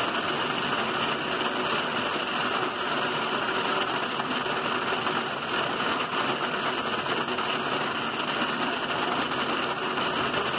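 Heavy rain mixed with small hailstones (ice pellets) falling on the driveway, a steady dense hiss.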